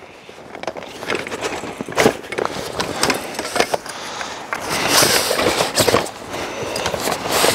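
Canvas carry bag rustling and scraping as the folded aluminium legs of a camping table are worked out of it, with irregular knocks and clicks of the metal parts.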